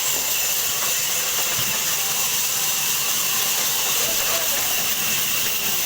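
Sawmill saw cutting through a large log: a steady, mostly high-pitched rushing noise that runs on without a break.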